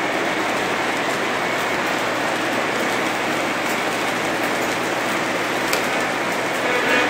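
Several model trains running at once on neighbouring tracks: a steady rattle of wheels and motors on the rails.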